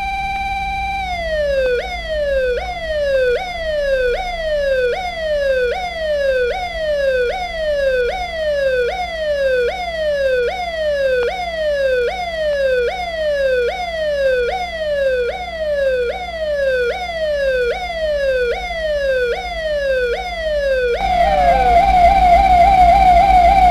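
Electronic police-style siren from a hobby-kit astable multivibrator circuit. It holds a steady tone for about a second, then repeats a falling sweep a little under twice a second, jumping back up each time. Near the end it switches to a fast, higher-pitched warble.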